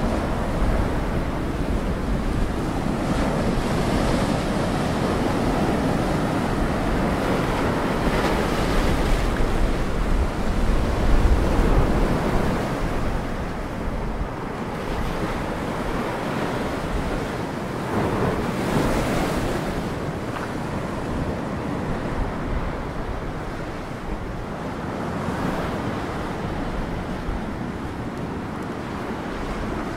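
Sea surf breaking and washing over a low rocky shore, swelling and easing every few seconds, loudest about a third of the way in. Wind buffets the microphone throughout.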